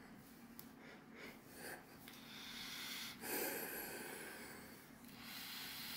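A person breathing slowly in and out through a Finnish military M61 full-face gas mask: faint, airy breaths, about three of them from about two seconds in.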